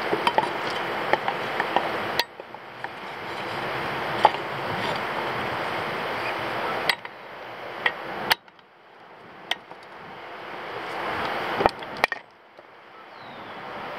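Scattered sharp metallic clinks and taps, like hand tools knocking against metal parts, over a steady background rush. The background drops out suddenly three times and builds back up each time.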